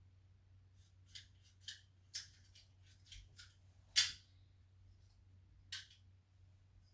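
A handful of short, sharp clicks at irregular intervals, the loudest about four seconds in, over a faint low steady hum.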